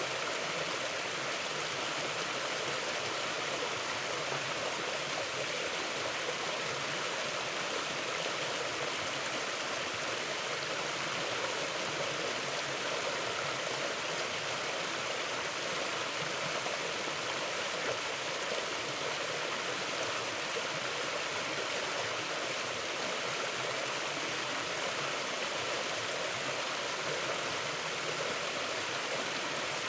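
Mountain river flowing over rocks: a steady rushing of water with no breaks or changes.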